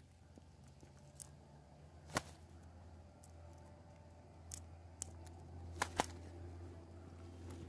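Faint scattered clicks and rustles as a spotted dove is handled in a wire-framed net trap, two clicks close together near the end as the bird flaps under the net, over a low steady hum.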